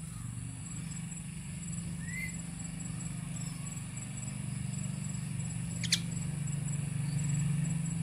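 A caged Asian pied starling gives a faint short rising chirp about two seconds in and one sharp, short call near six seconds, over a steady low hum.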